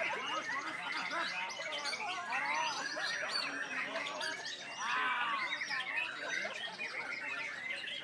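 White-rumped shama singing without a break: a rapid, varied stream of whistles, trills and chattering notes, with a louder run of looping whistles about five seconds in.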